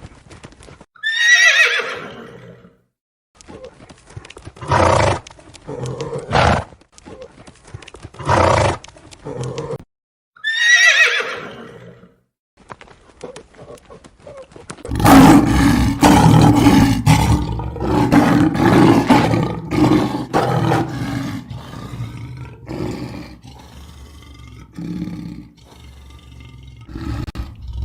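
Horse whinnying twice: long, falling, quavering neighs, with shorter snorts and sounds between them. From about halfway on comes a louder, lower, rough stretch of animal calls.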